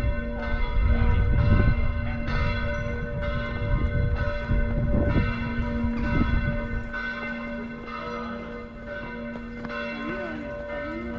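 Church bells ringing: several bells struck over and over, under a second apart, each stroke humming on under the next. A low rumble runs beneath them for about the first seven seconds.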